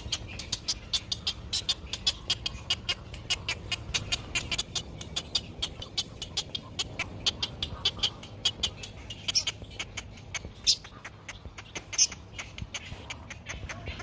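Great egret chicks giving rapid ticking begging calls, about six short sharp ticks a second, with a few louder ones late on.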